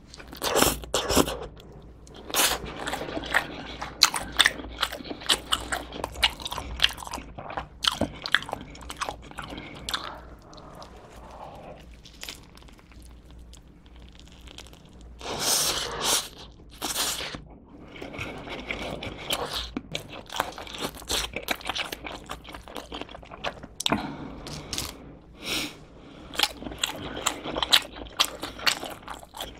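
Close-miked eating: a person biting into and chewing pizza, with crunching from the crust and wet, sticky mouth sounds from the cheese. The chewing eases to a quieter stretch partway through.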